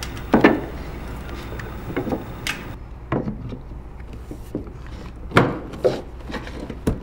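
Scattered wooden knocks and rubbing as a hardwood flush-mount stair nosing is handled, set down and pressed by hand onto a glued stair tread. The sharpest knocks come about half a second in and again about five and a half seconds in.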